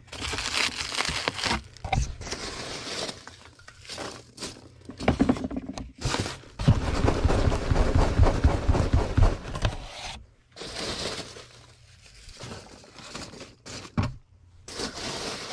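Packing peanuts being poured and pushed into a cardboard box around an item, a dry rustling and scraping. It is loudest for about three seconds in the middle and turns sparser toward the end.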